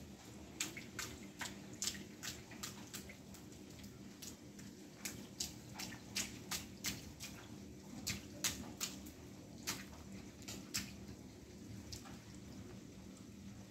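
Water dripping and splashing onto wet ground and puddles after rain: irregular sharp drips, several a second, thickest in the middle stretch.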